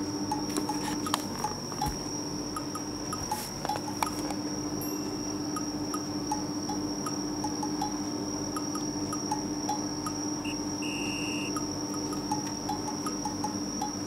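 Light background music of sparse, chime-like plinking notes over a steady high-pitched tone.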